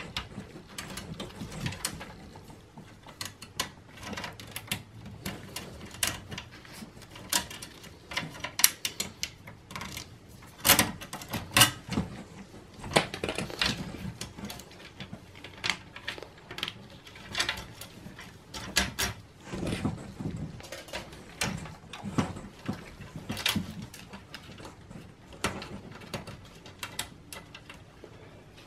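Irregular sharp clicks, taps and rattles of SATA cable connectors and plastic drive-bay clips being unplugged and handled inside a computer tower's sheet-metal case, with a few louder clicks about eleven and twelve seconds in.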